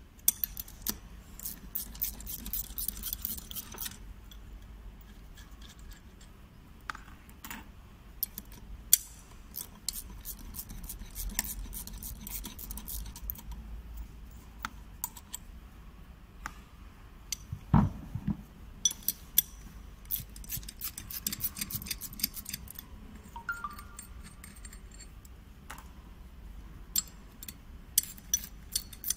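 Bursts of quick metallic clicks and clinks as stainless-steel bolts are worked loose with a wrench and set down on a tabletop while a three-way sanitary ball valve is unbolted, with one heavier knock about 18 seconds in.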